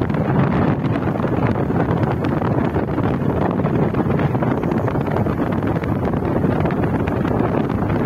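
Steady wind noise buffeting the microphone of a moving vehicle, over the vehicle's road noise.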